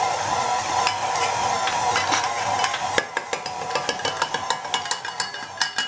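KitchenAid stand mixer running on speed 2 with its dough hook kneading bread dough, a steady motor whine. About halfway through, a quick run of light clicks and knocks starts as flour is poured into the bowl from a metal measuring cup.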